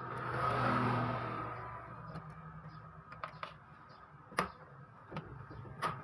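A motor vehicle going past, swelling to its loudest about a second in and fading over the next two seconds. Then a handful of short sharp clicks come from the Epson L3110 printer's plastic carriage parts as the print head is worked loose.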